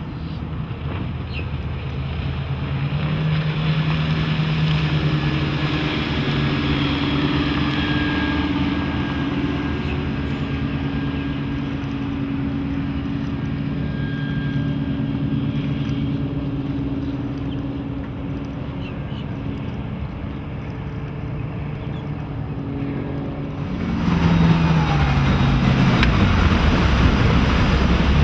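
Volvo Penta 5.0GL V8 sterndrive engine running steadily, pushing a bowrider under way, with its pitch rising a little a few seconds in. Near the end, louder wind and water noise comes in and the engine pitch falls as it slows.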